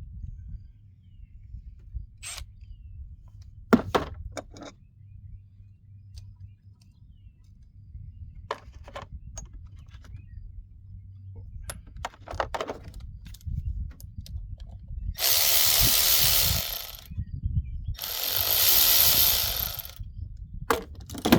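Power drill/driver run in two bursts of about two seconds each, backing out the screws that hold the carburetor on a small trimmer engine. Before that come scattered clicks and knocks of tools and parts being handled.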